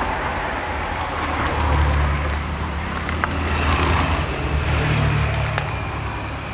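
Road traffic: a motor vehicle passes close by, its low engine rumble swelling for about four seconds over steady street noise, with a few light clicks.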